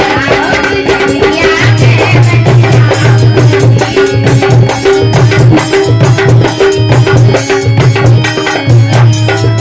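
Instrumental break in a Hindi devotional bhajan: a fast hand-drum rhythm over a held melody, with a deep pulsing bass that comes in about two seconds in.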